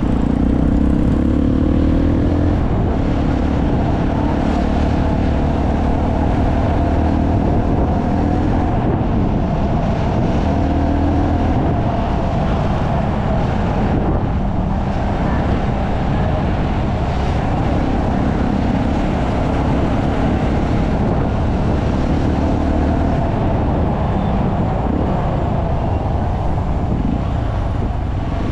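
A road vehicle's engine running on the move, over a steady rumble of road and wind noise. Its pitch rises and falls several times as it speeds up and eases off.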